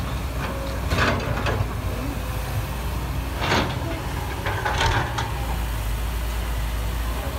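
Diesel engines of a Kobelco hydraulic excavator and ten-wheel dump trucks running with a steady low rumble, with a few short hissing bursts about one, three and a half, and five seconds in.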